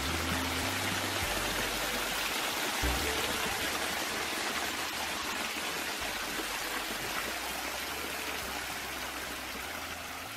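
Water pouring steadily from a small wooden spout into a shallow pool, a continuous splashing trickle that fades slightly toward the end.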